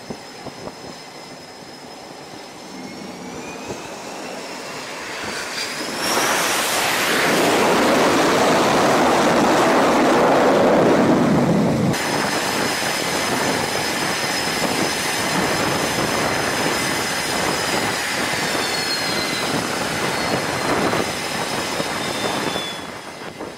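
Carrier jet engines: a rising turbine whine as a jet approaches, then loud jet-engine noise for about six seconds, then a steady high-pitched engine whine with one tone falling away near the end.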